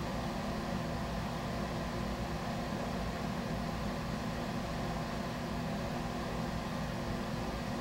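Steady low hum with hiss and no distinct events: room or equipment background noise.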